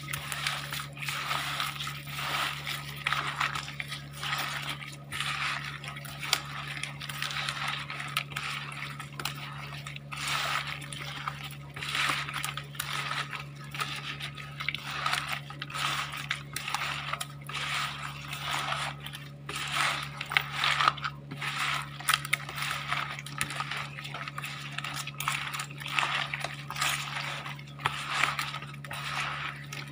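Gloved hands mixing and rubbing raw fish chunks with salt and sugar in a plastic basin: continuous wet squishing and gritty crunching with small clicks and knocks against the basin. A steady low hum runs underneath.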